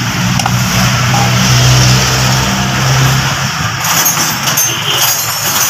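A motor vehicle engine running: a low steady hum that shifts slightly in pitch partway through, over an even hiss.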